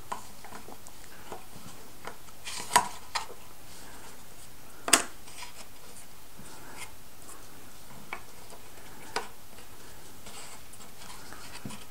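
Scattered light clicks and taps of thin plywood model-kit parts being handled and pressed into place. The two sharpest clicks come about three and five seconds in.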